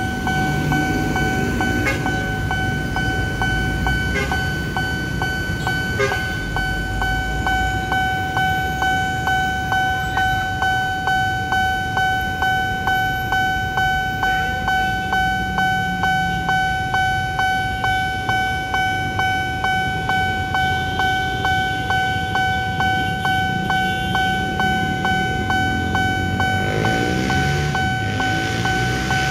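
Railroad crossing warning alarm sounding from the signal post's loudspeaker: a steady electronic ringing tone struck about twice a second, warning that a train is coming. Road traffic rumbles underneath, heavier at the start and near the end.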